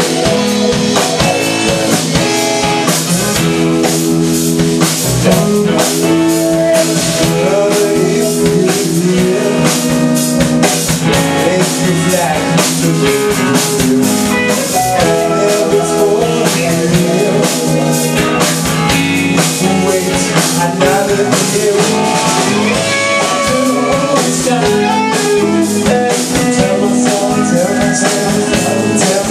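Live rock band playing: electric guitar, electric bass and drum kit, amplified and played loud through a club PA.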